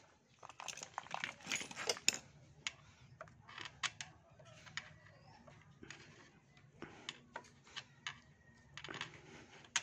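Scattered small clicks, taps and rustles of hand work on a motorcycle kickstart shaft as a new rubber oil seal is pushed over the splines and the strip of face-shield plastic guiding it is pulled out. The clicks come in clusters, busiest in the first two seconds and again near the end.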